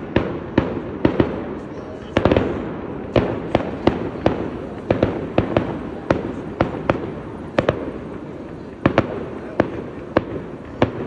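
Aerial fireworks bursting overhead in a rapid, irregular series of sharp bangs, about two a second, with a quick cluster of bangs a little over two seconds in.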